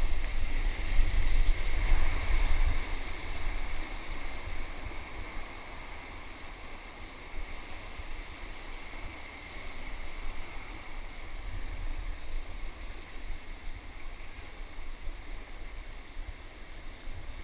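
Rushing whitewater of a river rapid around an inflatable kayak, picked up by a camera on the boat, with a heavy low rumble on the microphone. It is louder and choppier for the first few seconds, then eases to a steadier, quieter rush as the boat reaches calmer water.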